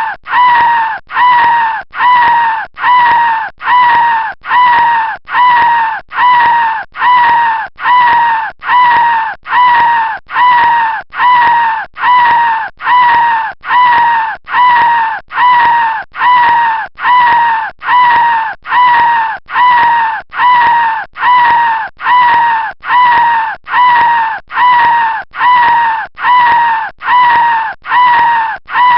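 Stock sound effect looped: a short, high-pitched cry that bends slightly down in pitch, repeated identically about once a second.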